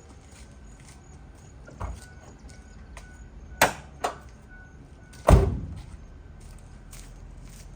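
Sharp metal clicks and clunks as a Ford Econoline van's hood is released and opened, the loudest a heavy clunk with a short ring about five seconds in.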